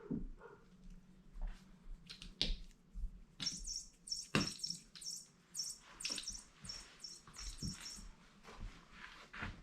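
Chirping bird cat toy letting out a run of high chirps, about two a second, for several seconds in the middle, with sharp knocks and scuffles as the cat bats at it.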